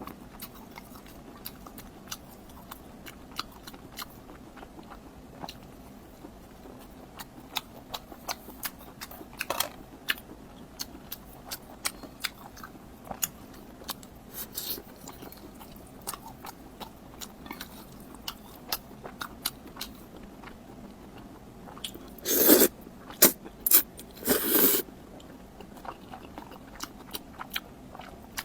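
Close-miked chewing and biting of food: a steady run of small wet mouth clicks and crunches, with two louder bursts of crunching near the end.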